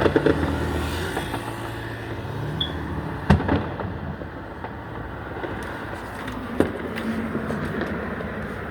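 Neighbourhood fireworks going off: one sharp bang about three seconds in, the loudest, then a couple of smaller pops and scattered faint crackles over a steady background rumble.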